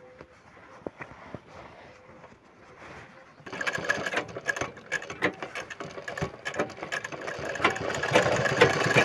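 Tochi sewing machine starting about three and a half seconds in and running at speed, stitching a seam through jeans denim with a fast, even clatter that grows louder toward the end. Before that there are only faint clicks as the fabric is set under the presser foot.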